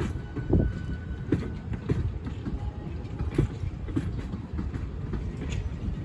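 Passing train cars rumbling, their wheels knocking over rail joints in a repeating clickety-clack.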